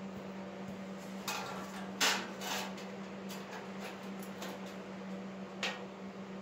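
Rustling and scuffing of a stiff paper template being handled and pressed against a rusted steel mower deck, the loudest scuff about two seconds in and another short one near the end, over a steady low hum.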